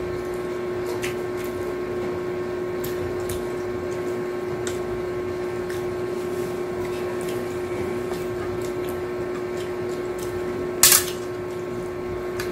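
A steady machine hum with a fixed low tone, under faint scattered clicks of hands handling lettuce and food on plates. Near the end comes one short, loud, crackly burst, like a bite into a lettuce-wrapped taco.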